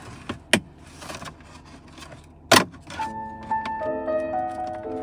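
Sharp plastic snaps and clicks as a plastic pry tool forces up the Ford Escape's gear-shifter trim panel, its retaining clips popping loose; it sounds like breaking, but the panel is not broken. The loudest snap comes about two and a half seconds in, and background music with held notes starts about three seconds in.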